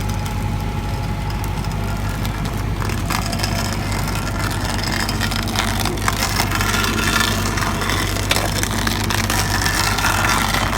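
Backhoe engine running steadily under load while its Fecon Stumpex, a low-speed, high-torque stump grinder, bores into a stump. From about three seconds in, irregular crackling and clicking comes in as wood and river rock are churned and swept aside.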